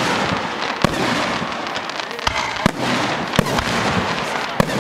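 Aerial fireworks shells bursting in a display: five sharp bangs at irregular intervals over a continuous dense noise of further explosions and their echoes.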